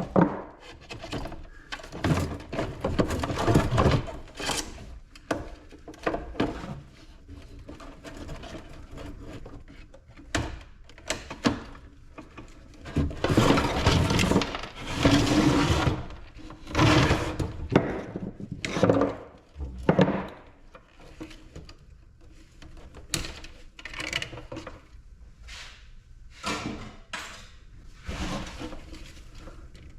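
Small countertop ice maker being dismantled by hand for scrap: irregular knocks, clatter and cracking of its plastic housing and metal parts as they are pried and pulled apart.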